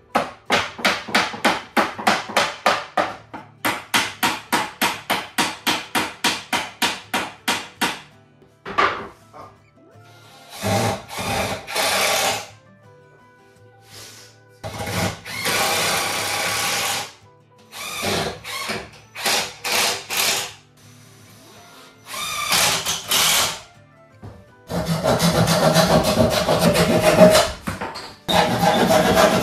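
Hand saw cutting through a wooden shelf frame: quick even strokes, about four a second, for the first several seconds, then longer stretches of sawing broken by pauses.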